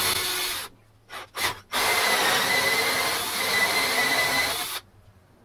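Cordless drill driving a hole saw into a wooden cabinet face. A short burst comes first, then two brief starts, then about three seconds of steady cutting that stops shortly before the end.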